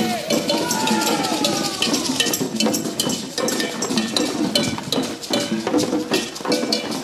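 Cowbells being rung in quick, uneven clanks, with voices calling out over them near the start.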